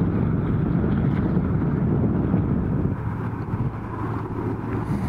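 Wind buffeting the camera microphone, a dense low rumble that eases a little about three seconds in.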